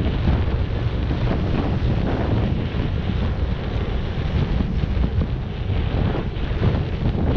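Strong wind buffeting the microphone: a steady low rumble with no clear breaks.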